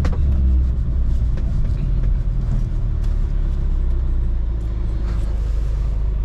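R53 Mini Cooper S driving, heard from inside the cabin: a steady low rumble of engine and road noise.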